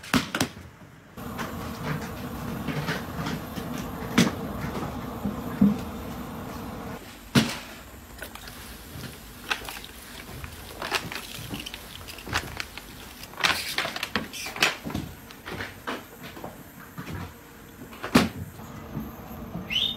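Scattered knocks and clatters of bread-making work at a clay tandoor, over a steady hum.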